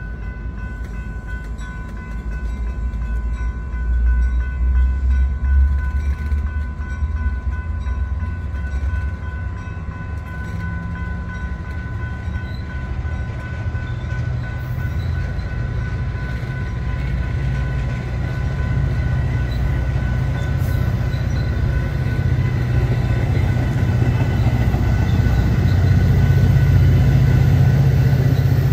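Diesel commuter train locomotive running, its deep engine sound growing louder toward the end, with a steady whine over it that fades out about two-thirds of the way through.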